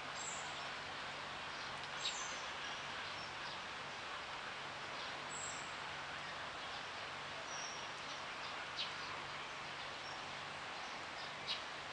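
Steady outdoor background hiss with a few short, high bird chirps scattered through it and three sharp clicks.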